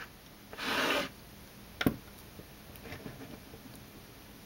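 McFarlane Robocop plastic action figure being pulled off its display stand: a brief scraping rub about half a second in, then one sharp click, followed by faint handling of the plastic figure.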